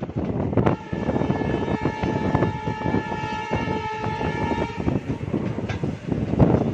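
A train's horn sounds one long blast of about four seconds, starting about a second in, over the steady rumble and clatter of a train's wheels on the track.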